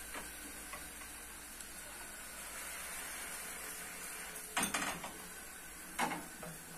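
Wooden spatula knocking and scraping against a frying pan as a thin flatbread cooks on a gas stove: a short clatter about two-thirds of the way through and a single knock shortly after, over a faint steady hiss.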